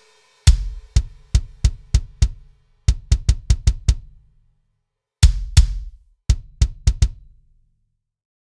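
Sampled kick drum in the Superior Drummer 3 drum sampler, auditioned as single dry hits: six evenly spaced strokes, a quicker run of seven, a pause, then two louder hits and a final run of four.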